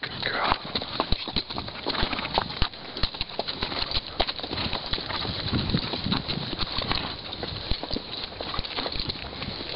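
Horse hooves clopping irregularly on hard, stony desert ground as two horses are ridden, over a steady hiss.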